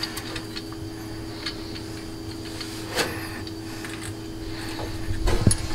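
Metal laser head assembly being handled and fitted onto the gantry of a CO2 laser engraver: a few light clicks, one sharper about halfway through, and a cluster of louder knocks near the end, over a steady low hum.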